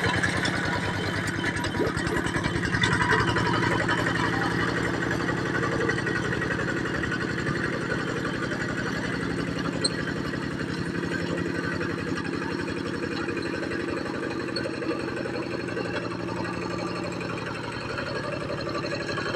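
Kubota tractor's diesel engine running steadily while working a field.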